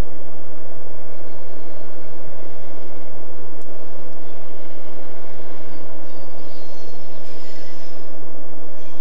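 Locomotive-hauled freight train rolling slowly past with a steady rumble. Thin, high wheel squeals come and go in the second half.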